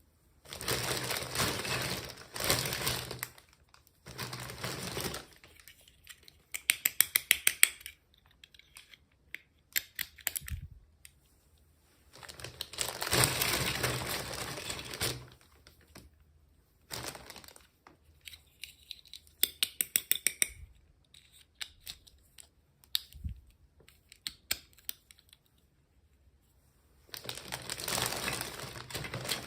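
Plastic toy packaging being handled and opened. Bursts of crinkling and rustling lasting a second or three alternate with quick runs of sharp clicks, with short quiet gaps between them.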